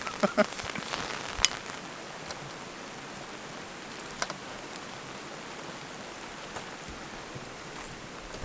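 Light rain falling, a steady soft hiss. A few sharp taps come in the first second and a half, the loudest about 1.5 s in, with another about four seconds in.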